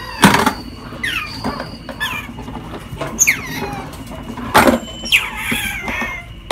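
Otter chirping in short, high squeaks that fall in pitch, about five of them. Two loud knocks on the hard plastic ball-drop toy, just after the start and a little past the middle.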